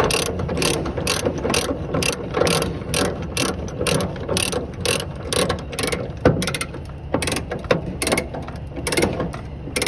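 Ratchet chain binder being cranked: the pawl clicks in a steady run of sharp clicks, several a second, as the handle is worked back and forth to take the slack out of a load chain.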